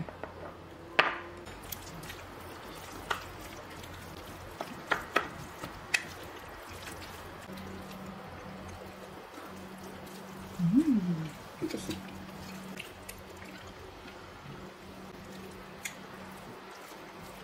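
Wooden spoon mixing sauced rice with stir-fried beef and squid in a glass baking dish: wet, squishy stirring with scattered sharp clicks of the spoon against the glass. A brief pitched sound that rises and falls comes about eleven seconds in.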